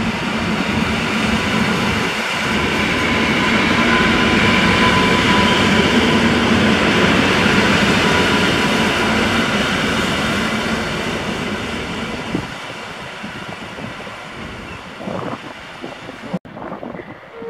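Koleje Mazowieckie EN57AL electric multiple unit running past along the platform, a dense rumble of wheels and running gear with a steady thin whine. It builds to its loudest around the middle, fades as the train moves away, and cuts off suddenly near the end.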